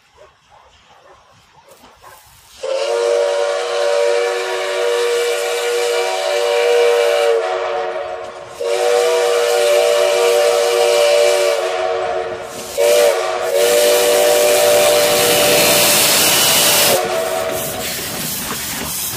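Steam whistle of the Mogiana 206 steam locomotive blowing the level-crossing signal as it approaches: two long blasts, a short one and a final long one, starting a few seconds in. Near the end the whistle stops and the locomotive passes close by with a loud hiss of steam.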